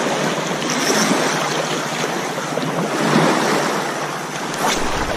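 Small waves washing over a pebble shore, a steady hiss of water over stones, with wind on the microphone.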